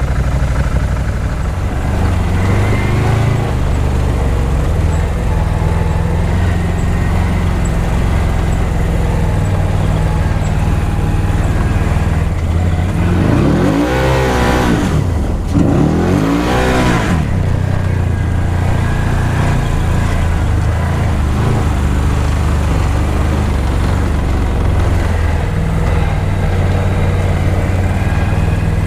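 Side-by-side UTV engine running steadily under way, with a louder sweeping rush twice around the middle.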